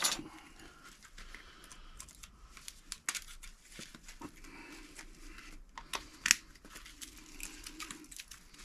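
Steel being pried and pulled off copper parts salvaged from a microwave: sharp metallic snaps and clicks with scraping and crinkling between them. The loudest snaps come at the very start and twice close together about six seconds in.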